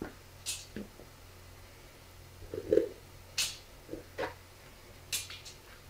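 Hands breaking a cauliflower into florets and dropping them into a perforated stainless-steel colander: several short crisp snaps and light knocks, about a second apart.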